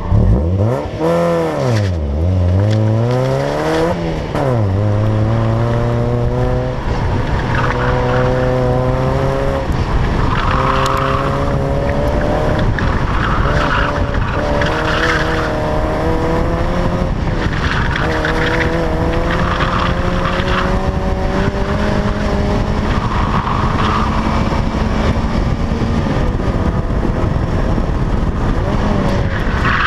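1992 Mazda Miata's four-cylinder engine at full effort through an autocross run, its pitch climbing and dropping again and again as the driver accelerates, lifts and shifts. Short bursts of tyre squeal come from the R888 tyres in several corners.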